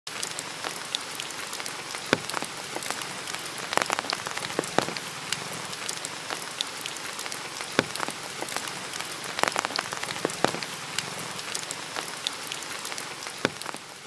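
Rain falling on forest leaves: a steady hiss dotted with many sharp single drop strikes, fading out at the very end.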